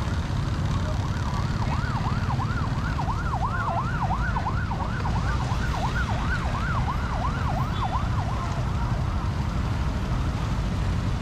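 A fast-warbling emergency-vehicle siren, sweeping up and down about three times a second, growing louder and then fading away over several seconds. A steady low road and engine rumble runs beneath it.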